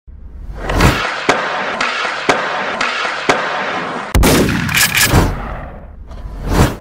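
Edited intro sound effects: a whoosh, then a steady hiss with sharp clicks about twice a second, a sudden loud hit about four seconds in followed by sweeping whooshes, and a rising whoosh that cuts off abruptly at the end.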